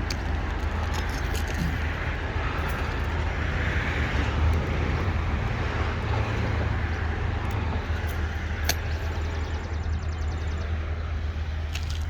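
Steady outdoor rumble and hiss, with one sharp click about two-thirds of the way through.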